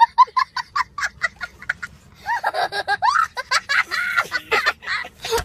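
A young child laughing hard: a quick run of short, high-pitched laughs, then longer wavering whoops of laughter.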